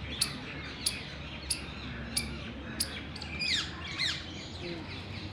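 Indian palm squirrel chirping: sharp, high chip calls repeated evenly about every two-thirds of a second, five times, then two falling chirps about three and a half and four seconds in.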